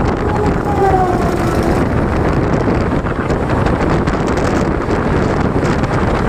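Mumbai suburban local train running at speed: a steady rush of wheel, rail and wind noise over the microphone, with a brief falling tone about a second in.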